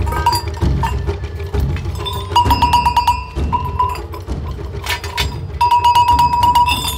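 Freshly fired Sardinian sheet-iron bells (sonazzos) clinking and clanking against one another as they are picked up from a pile of ash and charcoal, with runs of rapid ringing about two and a half seconds in and again near six seconds.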